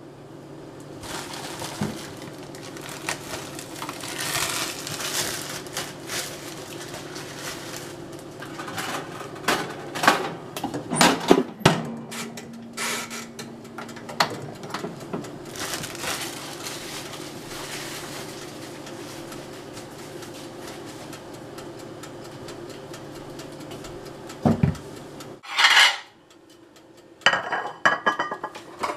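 Kitchen clatter of dishes and cutlery handled at a counter while preparing toast: scattered knocks and clinks, with a few louder bangs near the middle and near the end, over a steady low hum.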